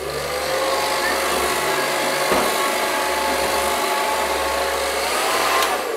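Handheld electric hair dryer switched on, its motor whine rising as it spins up, then blowing steadily with a loud rush of air; near the end it is switched off and the whine falls away as the motor winds down.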